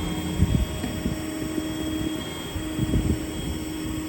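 Hydraulic crane winch on a service truck being run up, with a steady whine from the PTO-driven hydraulic system over the running diesel engine. The whine breaks off briefly about two seconds in and picks up again, with irregular low thumps underneath.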